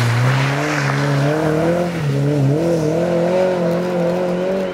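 Ford Escort RS rally car accelerating hard out of a bend and away, its engine note climbing, dropping briefly twice around two seconds in at upshifts, then climbing again. Gravel and dirt spray from the tyres at the start, and the engine fades a little near the end as the car pulls away.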